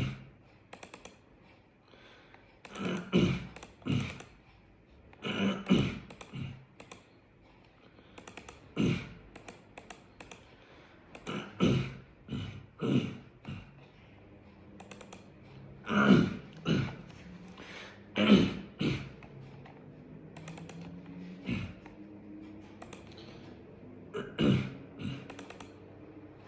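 A man repeatedly clearing his throat in short, harsh bursts, irregularly every one to three seconds and often two in quick succession: a vocal throat-clearing tic of Tourette syndrome.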